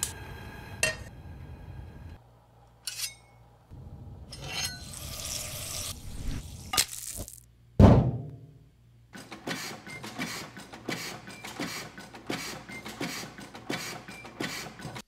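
A string of sound effects for an animation. A click comes about a second in, then a short high ring, then a hiss lasting about two seconds, then a heavy thud whose ringing falls away. Fast, irregular clicking and clattering follows to the end.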